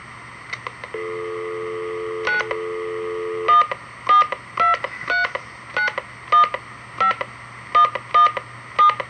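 A landline telephone going off-hook with a couple of clicks, a steady dial tone for a few seconds, then a number being dialled on a touch-tone keypad: a quick string of about eleven short DTMF beeps, roughly two a second.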